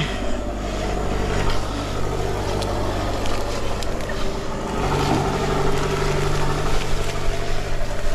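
Mountain bike coasting down a rough grassy slope: a steady low mechanical hum from the moving bike, with light clicks and rattles over bumps and a change in the hum about five seconds in.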